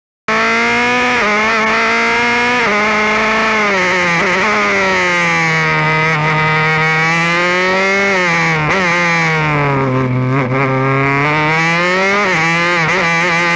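Formula Renault 2.0 single-seater's engine at racing speed, heard onboard from the cockpit. The engine note drops twice with upshifts in the first three seconds, sinks steadily as the car slows for a corner with short blips on downshifts around the tenth second, then climbs again accelerating out, with another upshift near the end.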